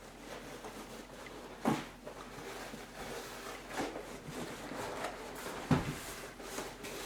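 Hand-work noises from stripping an old seat cover off a car seat frame: a few sharp clicks and knocks, the loudest about two seconds in and near six seconds, with quieter handling noise between.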